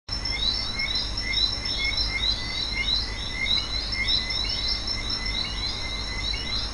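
A chorus of many short chirping animal calls, overlapping several times a second, over a steady low rumble.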